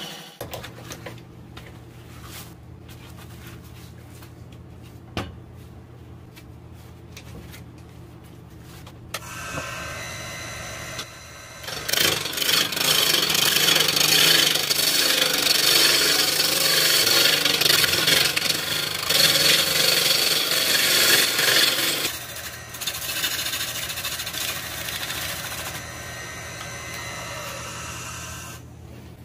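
Wood lathe motor humming steadily while a hand-held turning tool cuts into a spinning block of root wood. The cutting starts about nine seconds in, is loudest from about twelve to twenty-two seconds, then goes on more lightly and stops just before the end.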